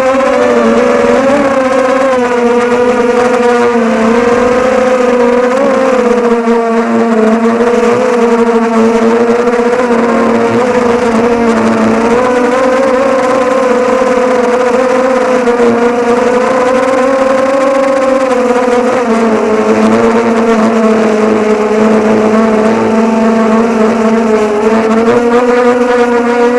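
Motors and propellers of a mini H-frame FPV quadcopter whining loudly and steadily, the pitch wavering up and down as the throttle changes, dipping briefly before rising again near the end.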